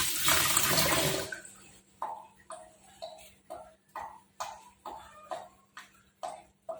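Tap water running, which stops about a second in. Then a carrot is scraped with a vegetable peeler in short, even strokes, about two a second.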